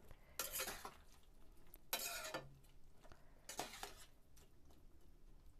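Metal spatula stirring a thick chickpea and paneer curry in a kadai: three faint stirring strokes about a second and a half apart.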